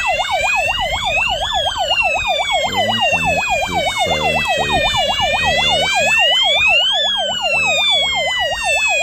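Siren sounder of a Visionuk addressable wireless fire alarm system going off in alarm after a device was triggered. It is a loud, rapid warble layered with a slower tone that rises, falls and rises again.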